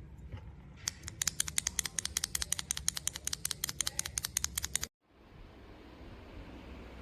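Fantasy Virus tactile mechanical keyboard switches being pressed in a fast run of sharp clacks, about ten a second, for some four seconds. It cuts off suddenly and a steady hiss follows.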